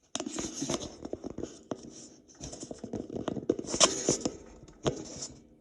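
Padlock and lock-pick tools being handled and set down on a work surface: an uneven run of sharp clicks, taps and scrapes, busiest about four seconds in.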